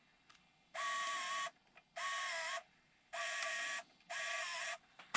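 Panasonic PV-DV900 camcorder's MiniDV tape mechanism whirring in four short bursts, each under a second, with a small-motor whine that dips in pitch in the second burst, as recording is stopped. A sharp click comes at the end.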